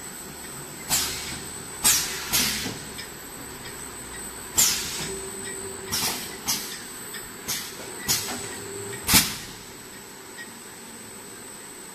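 Four-nozzle piston filling machine for sauce jars running, with about nine sharp hisses of compressed air from its pneumatic valves and cylinders at uneven intervals, which stop a little after nine seconds in. A faint steady high whine runs beneath them.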